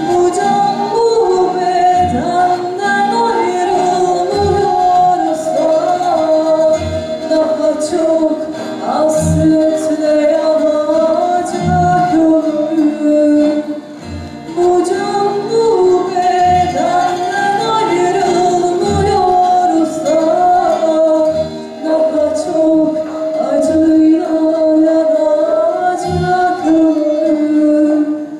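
A woman singing a Turkish folk song (türkü) into a microphone in long, ornamented held lines, with a frame drum struck in a slow, even beat about every second and a half. The singing breaks briefly twice between phrases.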